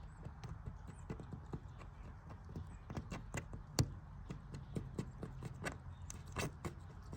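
Razor blade scraping excess cured repair resin off windshield glass: a run of irregular sharp clicks and short scrapes, one louder click about halfway through.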